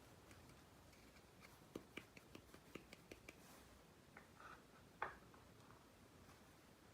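Faint light clicks and taps of small miniature kitchen toy pieces being handled and set in place, a quick run of them about two seconds in and one sharper click about five seconds in.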